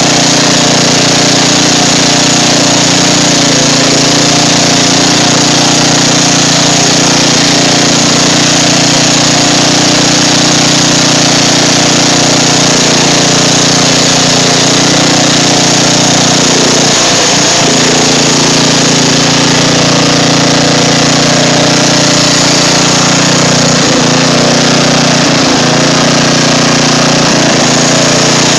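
Riding lawn mower engine running steadily under load as the mower ploughs through swamp water, with water splashing around the front wheels. The engine note dips briefly about two-thirds of the way through and a few more times near the end.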